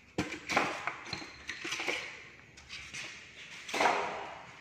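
Packaging being handled: a polystyrene foam insert and cardboard box moved about, with a few sharp knocks and scraping rustles, the loudest rustle near the end.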